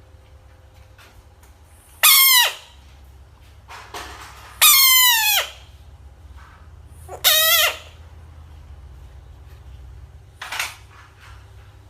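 A frog screaming three times, each a loud, harsh cry about half a second to a second long that falls in pitch; the defensive scream of an agitated frog. A fainter short hiss follows near the end.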